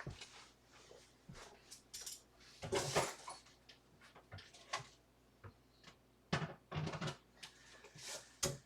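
Hands rummaging through stored lockpicking tools in search of shims: irregular knocks, clicks and rattles, loudest about three seconds in and again between six and seven seconds.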